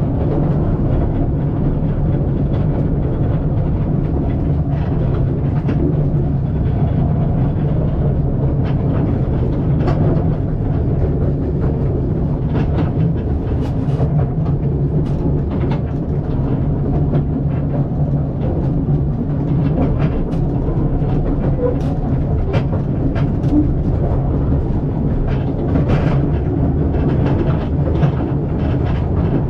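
Steady rumble of a moving narrow-gauge railway carriage, with scattered clicks and knocks of the wheels running over the rails.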